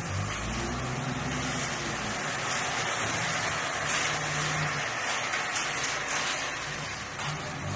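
Dump truck engine running while crushed gravel slides out of its raised bed, a steady hiss of pouring stones over the low engine note. A shovel scrapes into the gravel pile.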